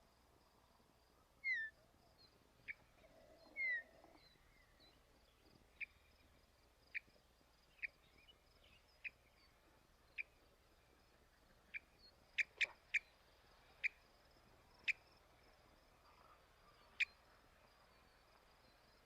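Wild bird calls: short, sharp chip notes about once a second, coming quicker for a moment near the middle, with a few brief downslurred whistles, over a faint steady hiss.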